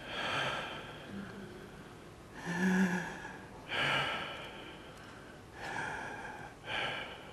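A man's breathy gasps and puffs: about five separate breaths a second or so apart, the loudest near the middle with a short low voiced grunt in it.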